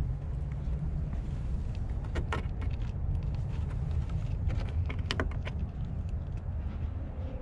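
Wind rumbling on the microphone, with two short clusters of light scratchy clicks about two and five seconds in as a cat rubs against and paws at a weathered wooden plank wall.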